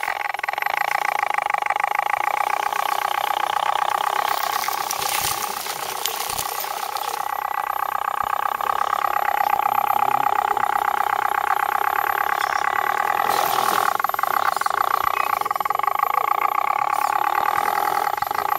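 Electric motors of RC scale crawler trucks whining steadily as they crawl, the pitch bending now and then with the throttle. A couple of stretches of hiss come in, about five and thirteen seconds in.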